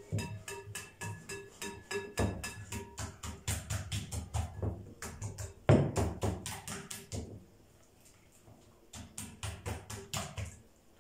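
Wire whisk beating a thin batter of flour, water, starch, spices and egg in a white ceramic bowl, the whisk clicking against the bowl several times a second. The clicking stops about seven seconds in, then starts again for a second or so.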